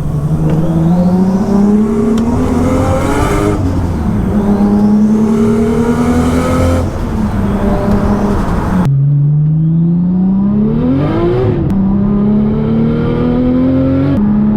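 Nissan R33 Skyline's engine accelerating hard, its pitch climbing through the revs and dropping back at gear changes about three and a half and seven seconds in. The sound breaks off abruptly near nine seconds, then the engine pulls up through the revs again.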